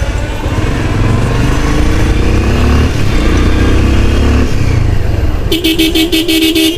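Motorcycle ride through traffic: a steady low engine and road rumble with the engine pitch rising and falling. About five and a half seconds in, a loud vehicle horn sounds in a rapid stuttering series of beeps for over a second.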